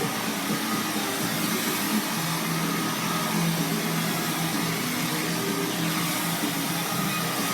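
Hair dryer blowing steadily: a constant rush of air over a low motor hum.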